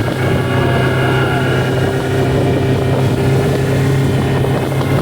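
Motorboat engine running steadily under way, a constant low drone.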